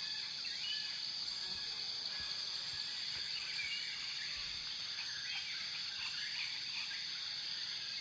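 Woodland ambience: many short, scattered bird chirps and calls over a steady high-pitched background noise.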